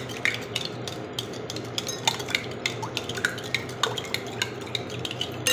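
A metal spoon briskly beating a runny batter in a glass bowl, clinking against the glass about five or six times a second in an uneven rhythm.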